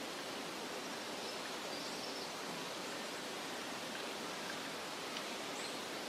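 Steady, even outdoor background hiss with no distinct sounds in it.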